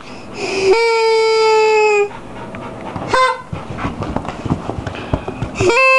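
A long steady-pitched tone with a buzzy edge about a second in, a short one near three seconds and another near the end. In between, a dog pants and shifts about.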